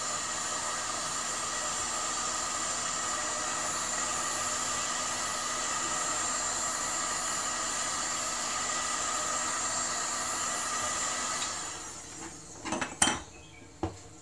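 1800-watt electric heat gun running on its low setting: a steady fan whine with a rush of air, heating the glass top of an induction stove to soften its adhesive. Near the end it switches off, and a few sharp clicks follow.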